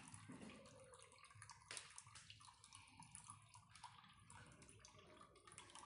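Thin stream of water from a homemade sensor-operated tap trickling faintly into a plastic cup, with occasional small ticks and drips.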